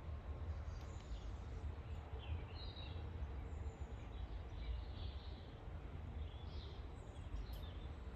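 Small birds chirping at intervals over a low, steady rumble.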